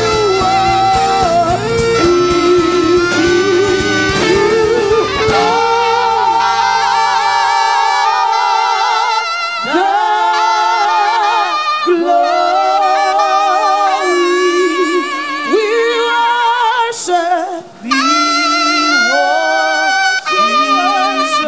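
Gospel worship music. A band with bass plays for about five seconds, then drops away, leaving a solo melody with heavy vibrato and notes that slide up into pitch.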